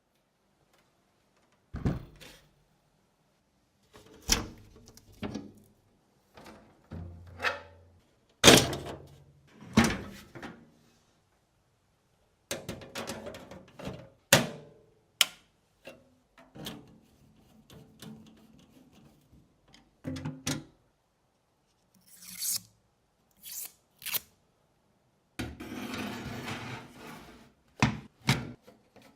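PC parts being handled and fitted during assembly: a string of separate knocks, clicks and thunks, with short stretches of rubbing or rustling.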